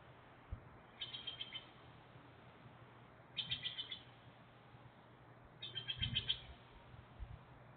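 A bird calling faintly: a short burst of rapid, pulsed notes repeated three times, about two seconds apart.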